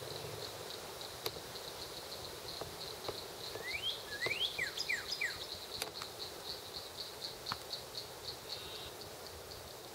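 Insect chirping in a steady, high-pitched pulse train, about three to four pulses a second, with a few quick sweeping chirps about four to five seconds in and scattered faint clicks.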